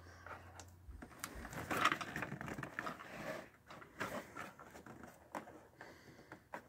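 Hands rummaging among small plastic toys and their packaging in a cardboard box: irregular rustling with light knocks and clicks, loudest about two seconds in.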